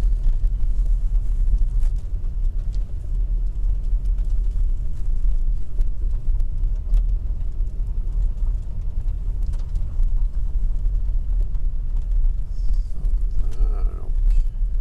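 Car driving on a snow-packed, icy street, heard from inside the cabin: a steady low rumble of engine and tyres.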